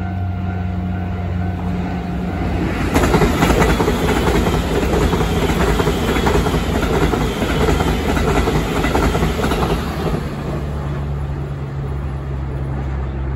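Taiwan Railway EMU900 electric multiple unit passing close by. A low steady hum turns loud about three seconds in, with wheels clacking rapidly over the rail joints, then settles into a steadier hum near the end.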